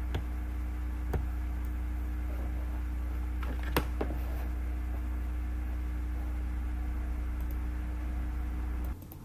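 Steady low electrical hum with a few short clicks, the loudest a little under four seconds in. The hum cuts off suddenly near the end.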